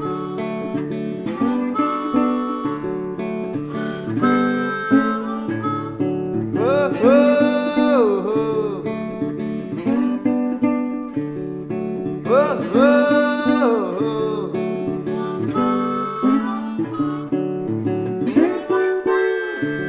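Background music: a harmonica playing over acoustic guitar, with two long notes that bend up, hold and fall.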